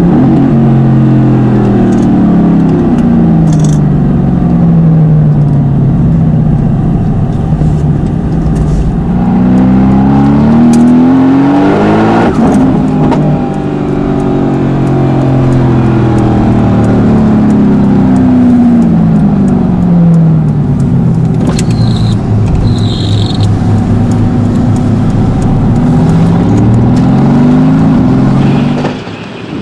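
Tuned Mercedes-AMG GT S twin-turbo V8, fitted with downpipes and upgraded turbos, running hard: its pitch climbs and sweeps back down again and again as the car accelerates and eases off. It quietens just before the end.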